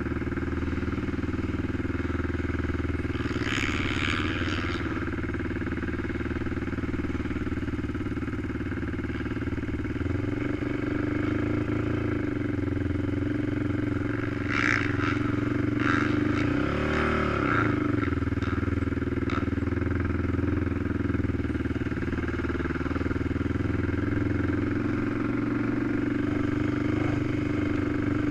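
ATV (quad) engine running steadily at low speed, heard onboard, with a rev that rises and falls about two-thirds of the way through. A few brief clattering rattles come in near the start and around the middle.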